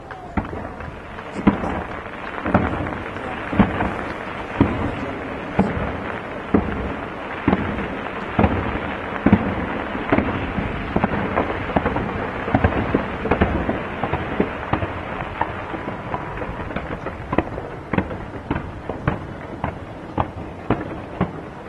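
Fireworks display: a steady run of sharp bangs, roughly one or two a second, over a continuous crackle.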